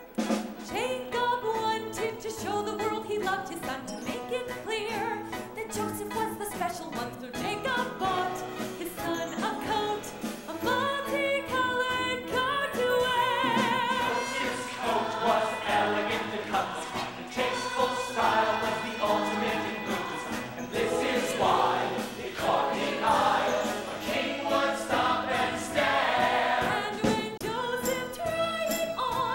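Musical theatre number: an ensemble chorus singing over instrumental accompaniment, coming in sharply at the start.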